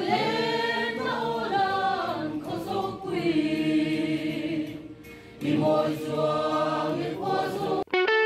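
Mixed choir of men's and women's voices singing in long, held phrases, with a short break about five seconds in.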